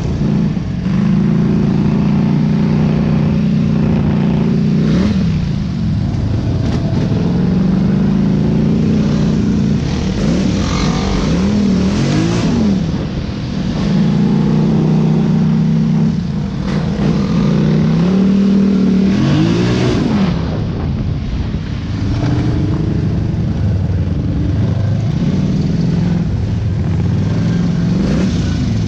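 ATV engine under way, its pitch holding steady for stretches, then rising and dropping as the throttle opens and closes, with a few quick revs near the middle.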